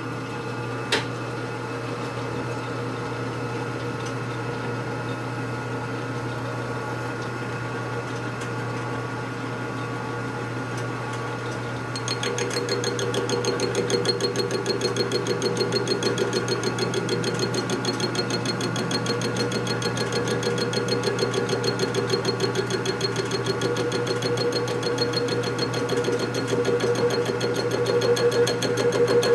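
Machine tool cutting an aluminum brake caliper bracket: a steady motor hum throughout, with one click about a second in. About twelve seconds in a fast, even rhythmic chatter sets in and the sound grows louder as the cut bites.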